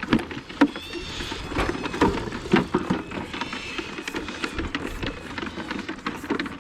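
Repeated knocks and clatter of calf-feeding teat buckets being handled in the pens and bumped by suckling calves, with a few short high chirps about a second in and again near the middle.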